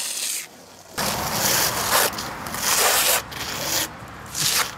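Trowel scraping wet acrylic stucco across a wall as the colour coat is spread on, in about four strokes with short pauses between them.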